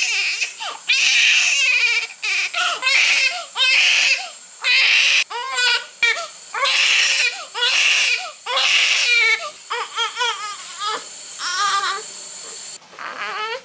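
Newborn baby crying hard: a run of loud, pitched wails, each half a second to a second long with short gasping breaks between. The crying drops away abruptly near the end.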